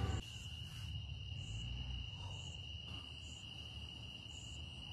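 Night insects, crickets, trilling steadily in one unbroken high tone, with a fainter, higher chirp about once a second.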